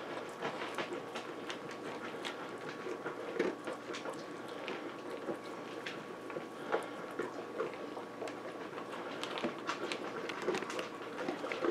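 St. Bernard eating dry kibble from a bowl: a long run of irregular crunches and clicks as it chews and its muzzle works the pellets in the bowl.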